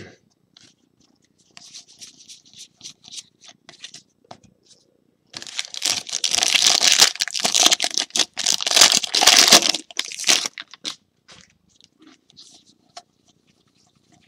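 The wrapper of a jumbo trading-card pack being torn open and crinkled: dense, loud crackling for about five seconds from about a third of the way in. Lighter rustles and clicks of cards being handled come before and after it.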